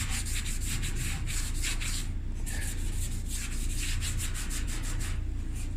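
A cloth being wiped quickly back and forth over the dryer's cabinet, a rubbing, scuffing sound of about five strokes a second.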